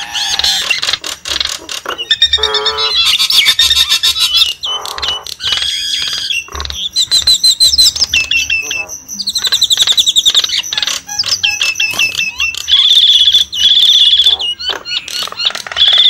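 Javan mynas calling in a loud, ever-changing stream of whistles, chattering trills and harsh clicking notes, the kind of recording played as a lure for wild birds.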